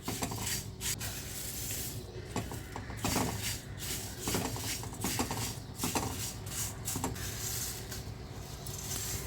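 Dry roasted puffed rice and flattened rice being tipped into a kadai and stirred through the spices: a crisp, continuous rustling and scraping with many small irregular clicks.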